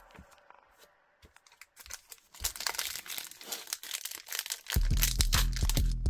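Foil booster-pack wrapper crinkling and tearing open in the hands, a rapid run of crackles starting about two seconds in. Background music comes back in near the end.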